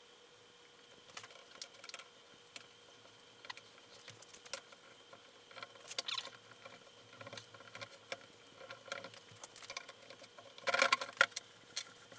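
Faint scattered clicks, taps and scrapes of a wooden fence board being handled and small bar clamps being fitted and tightened onto it for a glue-up, with a quick run of clicking about eleven seconds in.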